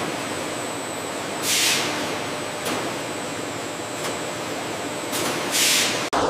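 Steady factory machinery noise, with a hiss swelling up about every four seconds and a short break just before the end.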